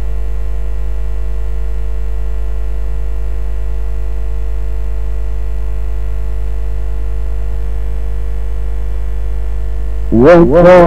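Steady electrical mains hum: a low drone with several steady tones above it, at an even level. About ten seconds in, a man's voice starts chanting Quran recitation, rising in pitch and louder than the hum.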